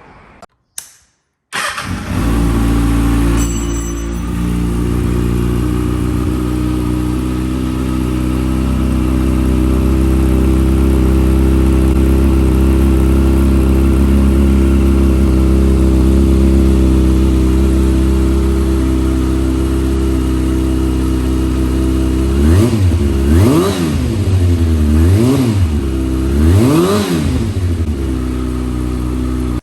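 A Kawasaki ZX6R 636's inline-four engine, breathing through a full Akrapovic exhaust with the baffle still fitted, starts about a second and a half in and idles steadily. Near the end it is revved in a few short throttle blips, each rising and falling in pitch.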